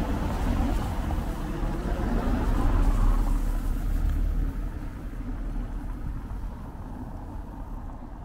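A motor vehicle passing close by: a low rumble that swells to its loudest about three seconds in, then fades away.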